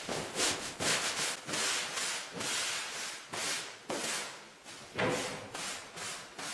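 Repeated rough rubbing strokes against a surface, like hand-sanding or scrubbing, about two a second and uneven in length.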